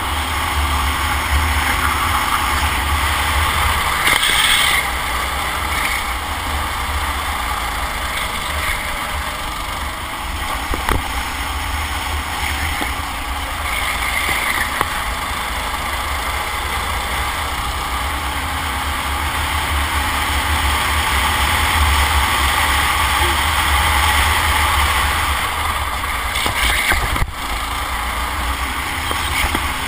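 Racing kart engine running hard under load through the corners, heard from onboard, with a heavy low rumble of wind on the camera microphone.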